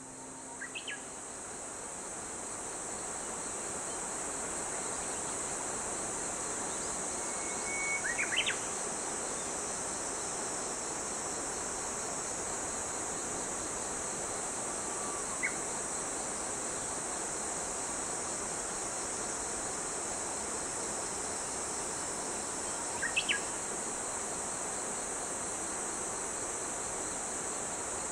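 Steady high-pitched insect chorus, with a few short bird chirps scattered through: one about a second in, a louder cluster around eight seconds, and others later on.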